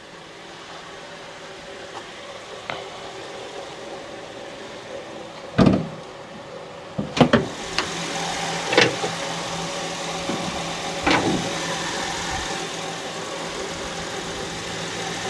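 2006 Honda Ridgeline's V6 engine idling with a steady whine, which the owner thinks comes from the power steering pump running low on fluid. Several thumps and clunks from the hood being released and lifted, the first about five and a half seconds in; after them the engine sounds louder and clearer.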